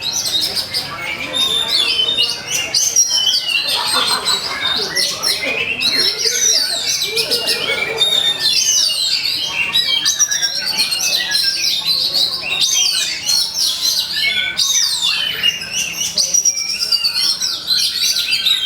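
Oriental magpie-robin (kacer) singing nonstop: rapid whistled notes sliding up and down with no pause, the excited fighting song that keepers play to provoke other kacer into singing.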